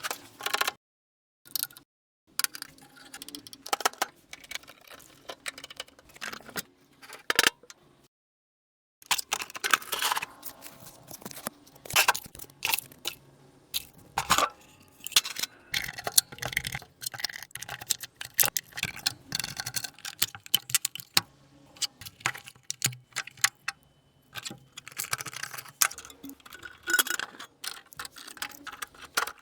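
Irregular clicks, taps and light metallic rattling of small parts and tools being handled while a National Cash Register is worked on, broken by two short dead-silent gaps near the start.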